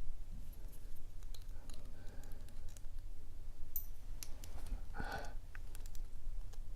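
Light metallic clicks and scrapes of a lock pick and tension wrench working the pin stack of a Sesamee 521 steel padlock, trying to bind and set a pin.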